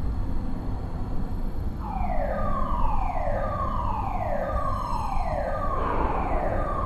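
Steady low rumble of a steelmill converter hall, with a warning siren starting about two seconds in: a falling tone repeated about once a second.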